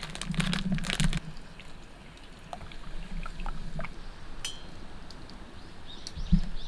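Scattered light clicks and clinks, busiest in the first second, with a single louder knock near the end.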